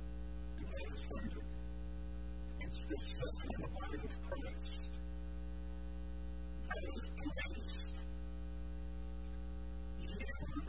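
Steady electrical mains hum, a low buzz with many evenly spaced overtones, with a man's voice breaking through in a few short stretches.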